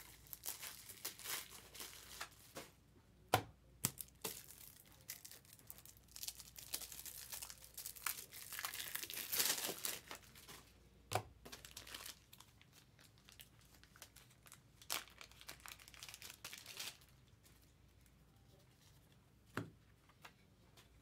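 Foil wrappers on trading card packs crinkling and tearing as they are opened by hand, in uneven bursts that are busiest in the middle, with a few sharp taps and clicks among them.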